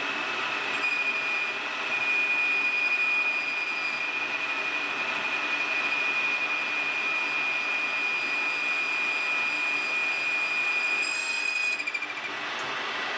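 Lathe boring bar with a carbide insert cutting inside a spinning metal bore, giving a steady high-pitched whine over the cutting noise. The whine is just on the edge of "screaming" chatter, a sign that the cut needs more feed or a lower spindle speed. It wavers and stops near the end as the cut finishes.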